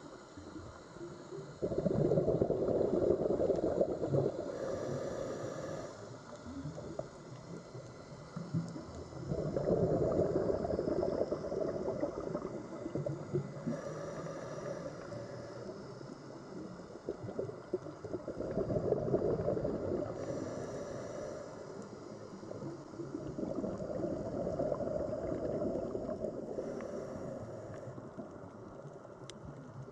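Sea water sounds: a low rushing wash that swells and fades in slow surges about every eight seconds.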